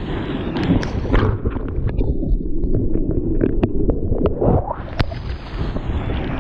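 Rushing, churning whitewater of a breaking wave heard from an action camera mounted on a bodyboard as it rides the foam: a loud low rumble of water with sharp splashes and spatters hitting the camera. For a couple of seconds in the middle the sound goes muffled, then opens up again.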